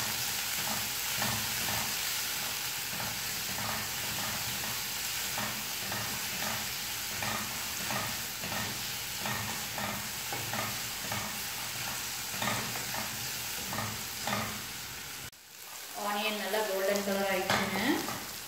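Sliced onions, green chillies and curry leaves sizzling in hot oil in a non-stick kadai, sautéing toward golden brown, while a wooden spatula stirs and scrapes the pan in a steady run of strokes. The sizzle cuts out briefly about three-quarters of the way through, then comes back.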